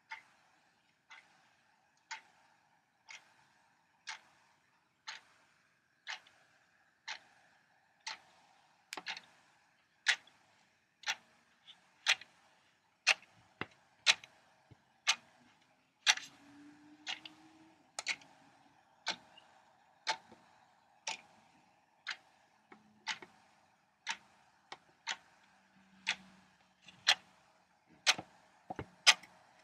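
A clock ticking about once a second, the ticks growing louder as it goes on, over a faint steady hum.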